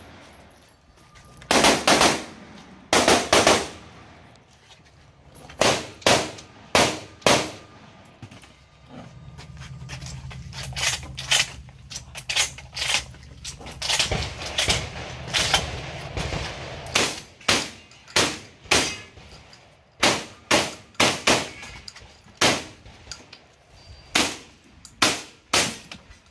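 Rapid gunfire from a semi-automatic firearm on a match stage, about three dozen sharp shots, mostly in quick pairs, with short pauses between strings. A low steady hum sits under the shots for several seconds in the middle.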